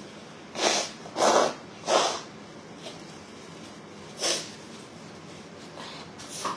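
A woman blowing her nose into a tissue: three short, loud blows in quick succession, then one more about four seconds in.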